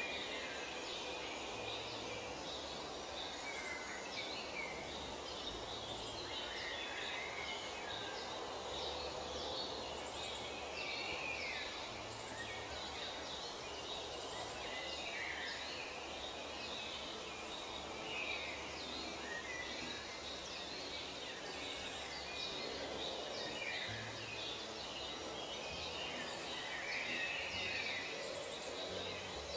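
Many small birds chirping and singing in a dense chorus, short calls overlapping over a steady background hiss.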